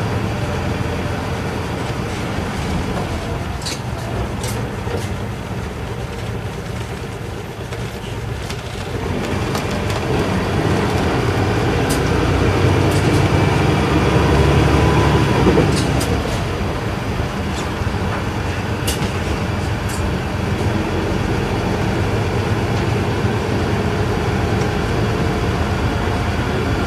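Isuzu Erga Mio bus's inline-six diesel engine running under way, heard from inside the cabin. The engine grows louder about nine seconds in and eases off again around sixteen seconds, with a few sharp clicks along the way.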